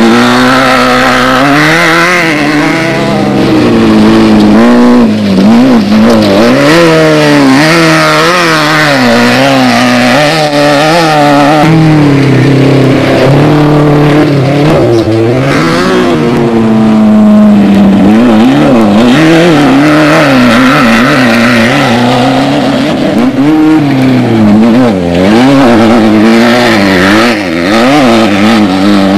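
Off-road desert race vehicle engine, loud and continuous, revving up and down rapidly over and over as the throttle is worked, with a steadier stretch of held revs around the middle.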